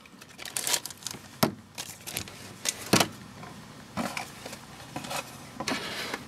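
Handling noise from a pair of plastic Oakley Straightback sunglasses: a handful of short, sharp clicks and taps at uneven intervals as the frames are handled and set down on a tabletop, with light rustling between them.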